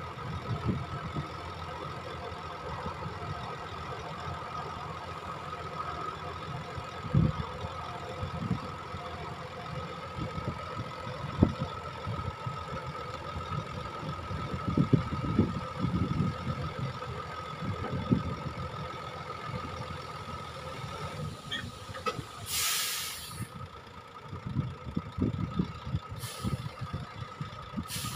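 Dump truck running with its bed raised, tipping out a load of sand: low, irregular rumbles and thuds as the sand slides and spills from the tailgate over the steady sound of the truck. Near the end come short hisses of air, one lasting about a second, then two brief ones.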